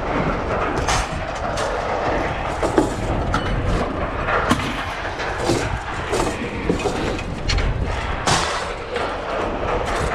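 Scrap metal pieces clanging and clattering irregularly as they are thrown off a truck onto a scrapyard pile, over a steady low rumble.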